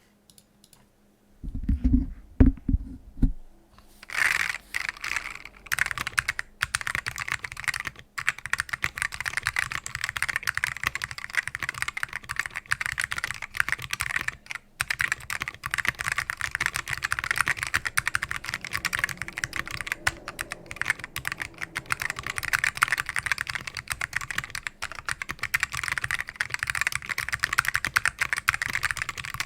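Typing on a custom mechanical keyboard with linearized black Alps switches (sonicated and relubed), an FR4 plate and SGI granite keycaps: fast, continuous key clicks from about four seconds in. It begins with a few low thumps about two seconds in.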